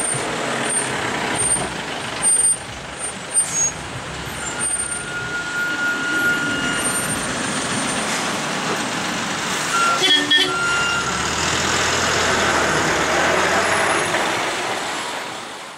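Heavy goods trucks' diesel engines running as they turn slowly through a hairpin bend, with steady road noise. A few short high tones sound, most about ten seconds in, and the sound fades out at the very end.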